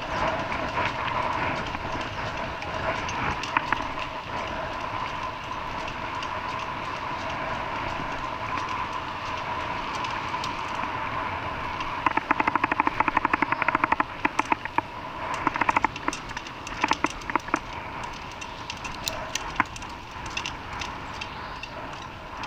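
Steady running noise heard from inside a moving vehicle, with a spell of rapid rattling about halfway through and scattered clicks and knocks after it.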